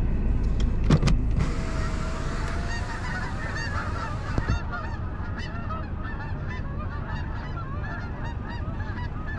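A flock of geese honking, many short calls overlapping without a break, over a low steady rumble.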